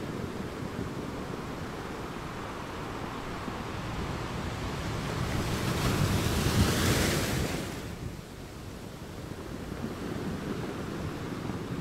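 Sea surf: a steady wash of waves that swells into one loud breaking wave about six to seven seconds in, then falls away sharply.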